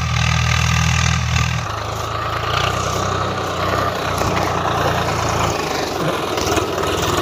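Swaraj 742 FE tractor's three-cylinder diesel engine running as it works a tilled field: a steady low drone that drops and turns rougher about one and a half seconds in.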